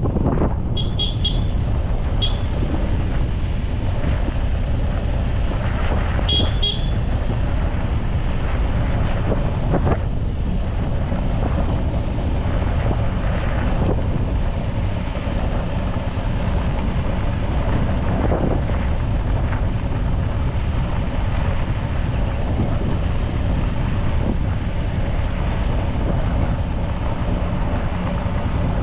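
Steady rumble of road traffic or a moving vehicle, with wind buffeting the microphone. Short high-pitched toots come in a quick group about a second in, and again as a pair about six seconds in.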